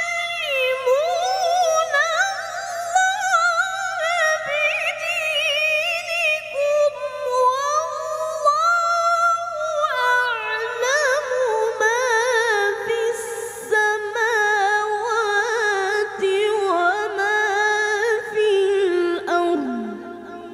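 A boy qari's high voice reciting the Quran in melodic tilawah style, holding long ornamented phrases that waver and slide between pitches. Near the end the voice drops lower and fades, over a faint steady low hum.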